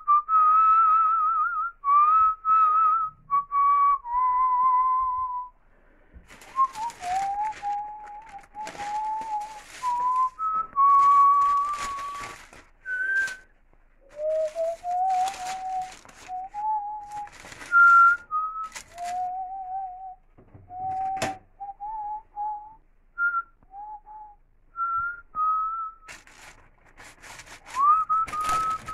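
A person whistling a slow, meandering tune in long held notes that glide from one to the next. From about six seconds in, and again near the end, it is mixed with rustling and handling noises.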